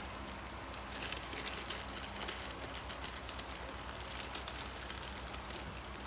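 Scattered light clicks and rustling of small parts and packaging being handled, over a faint steady low hum.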